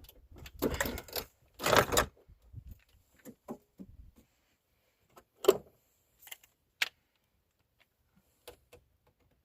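Hand work fitting a car battery: a couple of heavy clunks in the first two seconds, then scattered light clicks and knocks, with one sharp knock about five and a half seconds in.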